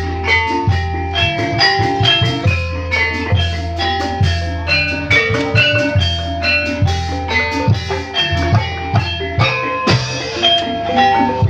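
Javanese gamelan music of the kind that accompanies ebeg dancing: struck tuned percussion plays quick runs of short ringing notes over drum beats and a low steady drone.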